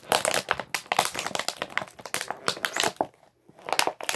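Plastic crinkling and crackling as it is handled close by: a quick, irregular run of snaps with a short lull about three seconds in.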